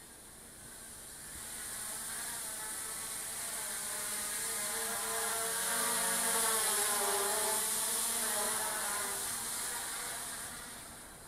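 Hubsan H501S quadcopter's propellers buzzing as it flies close past, growing louder to a peak about six seconds in and fading away near the end, the pitch wavering as it manoeuvres.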